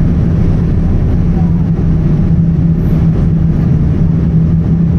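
Boeing 787-10 airliner cabin in flight: a steady roar of the jet engines and airflow heard from a window seat over the wing, with a constant low hum underneath.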